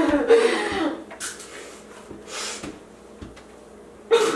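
Wordless voice sounds from people: a voiced laugh-like sound in the first second, two short breathy puffs in the middle, and voiced sound again near the end.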